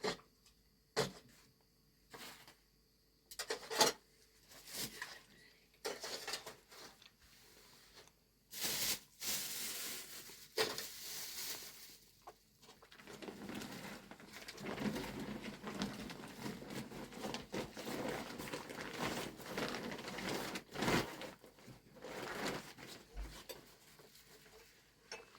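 Light handling noises: scattered knocks and rustles, then from about halfway through a steadier run of rustling with occasional knocks.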